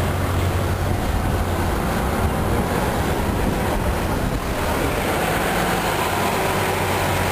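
An engine running with a steady low rumble, strongest in the first half and easing off about halfway through.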